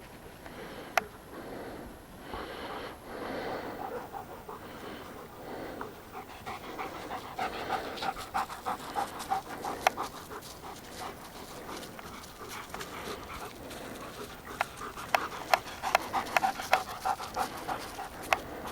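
A dog panting close to the microphone, slow breaths at first, then quicker, rapid panting from about six seconds in, with a few sharp clicks.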